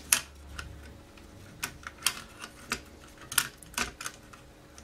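About half a dozen sharp, irregular clicks and small taps of metal and plastic parts being handled by hand, as the ZX Spectrum 48K's metal heat shield around the 7805 voltage regulator is worked loose from the circuit board.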